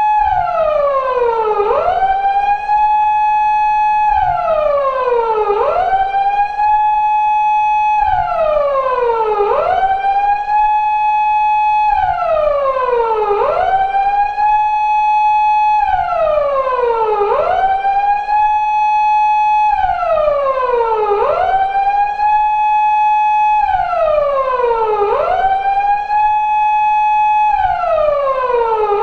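Japanese police car siren of the 2000s type used on 170- and 180-series Toyota Crown patrol cars, wailing on a four-second cycle: a held high tone falls in pitch, then sweeps quickly back up and holds again, over and over.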